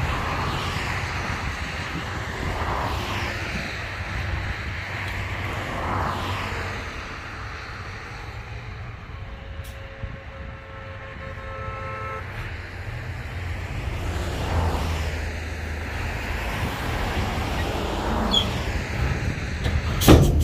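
Heavy diesel machinery running with a steady low rumble while vehicles pass by several times. A sharp clank near the end is the loudest sound.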